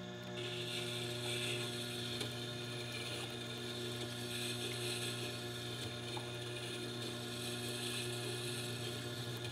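Tormek T8 wet sharpening grinder running, its motor and geared drive humming steadily, with a hiss of a blade being ground on the wet stone that starts about half a second in.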